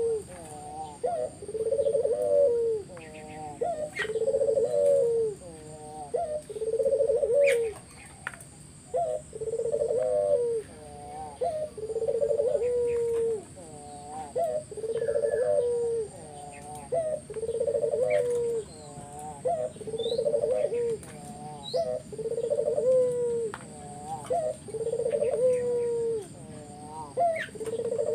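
Puter dove (ringneck dove) cooing in full, persistent song: a low coo phrase about a second long, ending on a falling note, repeated roughly every two seconds without a break. Faint chirps of other small birds sound between the phrases.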